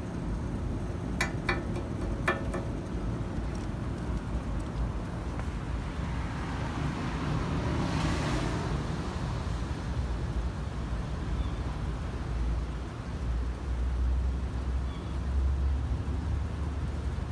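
Street traffic: a steady low rumble, with one vehicle passing, swelling and fading, about halfway through. A few sharp clicks come near the start.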